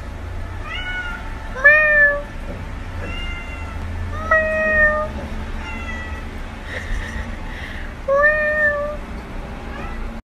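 Calico cat meowing over and over: a string of about seven short meows, one every second or two, each bending up and then down in pitch. The loudest comes about two seconds in.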